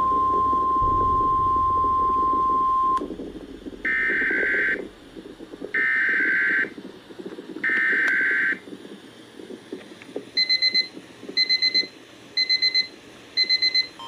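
A weather radio's steady single-pitch warning alarm tone cuts off about three seconds in. It is followed by three roughly one-second buzzy data bursts about two seconds apart. From about ten seconds in, a phone's high, rapidly pulsing emergency alert beeps repeat in groups about once a second.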